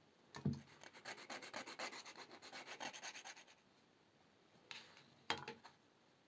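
Quick back-and-forth scraping strokes, about two and a half seconds of them, like a small file worked over the end of the brass wire, with a knock just before and a few sharp clicks near the end.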